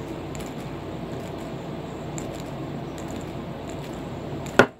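Fidget spinner spinning, its ball bearing giving a steady rough whirr while WD-40 just sprayed into it is still being worked in. A single sharp click near the end.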